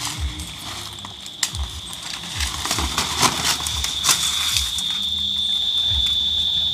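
A steady high-pitched insect drone, growing louder in the second half, over footsteps and rustling, with soft thumps about every half second and scattered crackles.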